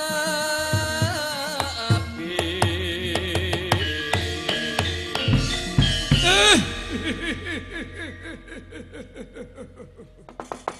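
Javanese gamelan accompaniment for wayang kulit, with a wavering melody line at the start and drum strokes throughout. In the second half a fast run of drum strokes fades away, and a few sharp knocks come near the end.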